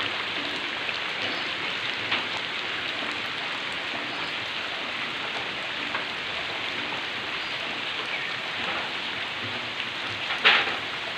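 Heavy, steady downpour with no wind or thunder, a dense even hiss of rain. Near the end there is a single louder splash.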